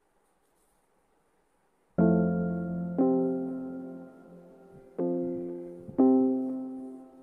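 Near silence for about two seconds, then background piano music begins: slow chords struck about once a second, each fading away before the next.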